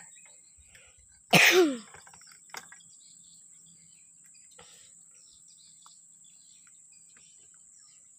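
A person coughs once, sharply and loudly, about a second and a half in. Under it a steady high-pitched insect drone runs on, with a few faint chirps.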